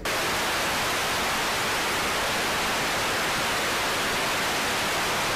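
Television static: a loud, steady hiss of white noise that cuts in suddenly and holds unchanged, the sound that goes with a screen of snow.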